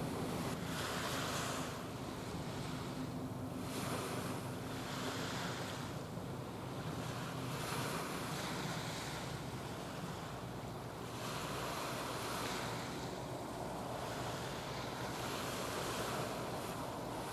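Water washing and lapping in surges about every two seconds, over wind noise on the microphone and a low steady drone.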